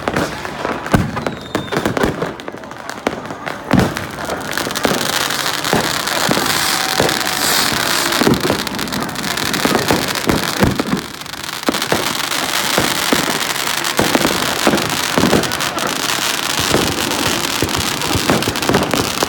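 Many fireworks going off at once: a rapid, uneven run of rocket bangs and pops, joined from about five seconds in by a dense, steady crackling hiss.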